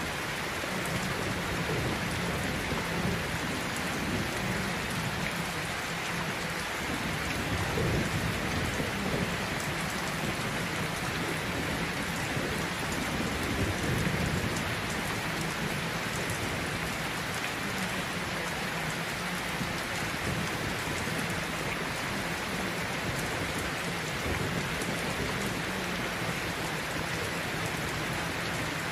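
Steady rain sound with low rumbles of thunder, swelling most about eight and fourteen seconds in.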